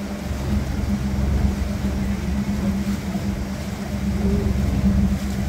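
A tour boat's motor running at a steady cruise: a constant low drone with a steady hum in it.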